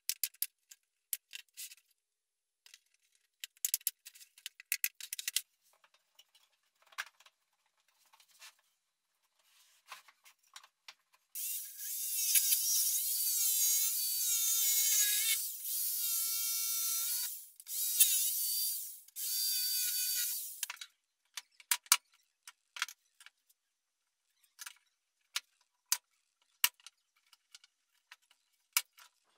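A pneumatic nail gun fires a series of sharp shots into plywood. Then a jigsaw cuts a thin board for about nine seconds in three or four runs, its pitch wavering, and stops. Scattered light clicks and knocks follow.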